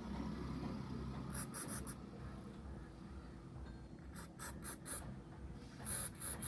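Short scratching strokes on a hard surface, in quick runs of three or four, over a faint steady hum.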